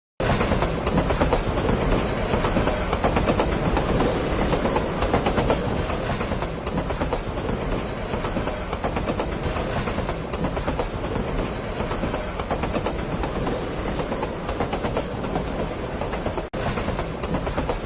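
Hankai Tramway Mo 501-type streetcar running, a steady noise of wheels on rails that dips briefly near the end.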